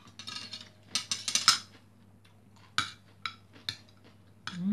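Metal spoon and fork scraping and clinking against a ceramic plate while fried rice is scooped up: a stretch of scraping in the first second and a half, then a few sharp separate clinks. A short voiced sound comes right at the end.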